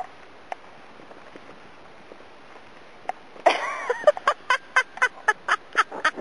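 Low hiss, then about halfway through a loud call that glides in pitch, followed by a rapid run of short quack-like calls, about four a second.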